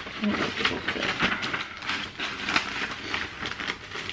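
Clear plastic bag crinkling and cardstock pieces rustling as paper cut-outs are handled and slipped into the bag, in a dense run of irregular crackles.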